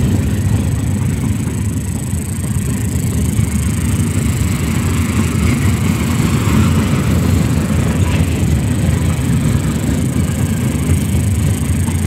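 Freight train's open-top gondola cars rolling past over the rails, a steady low rumble with no distinct beats.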